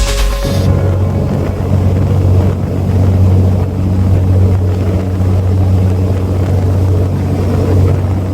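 Engines of the fast passenger ferry KM Majestic Kawanua running at a steady cruise: a loud, even low drone with rushing noise over it. A music track cuts off about half a second in.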